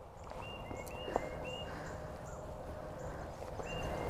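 Wild birds singing: two short runs of clear whistled notes, each run stepping down in pitch, with fainter high notes repeating alongside. A single sharp click about a second in.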